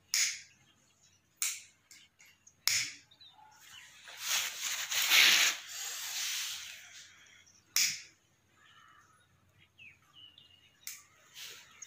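Plastic pocket lighter being struck again and again: short sharp clicks at intervals, with a flame lit near the end. A few seconds of hissing, rustling noise rise and fade in the middle.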